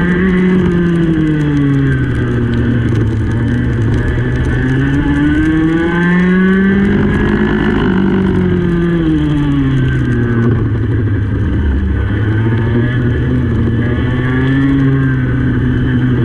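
Racing go-kart engine at race pace, its pitch climbing along the straights and dropping for the corners: rising into the first second, falling, rising again for a long pull that peaks about eight seconds in, dropping near twelve seconds, then rising again.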